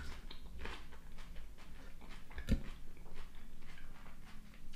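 Close-up eating sounds of a leafy seafood salad: irregular wet crunches and mouth clicks from chewing, with a fork picking at the food. A single sharp knock about halfway through is the loudest sound.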